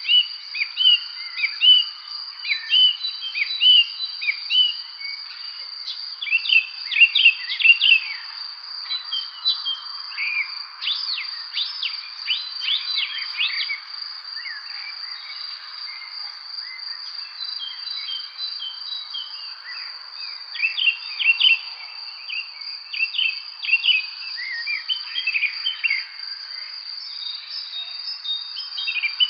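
Songbirds chirping and singing in short, repeated phrases, coming in flurries with brief lulls, over a continuous high insect trill.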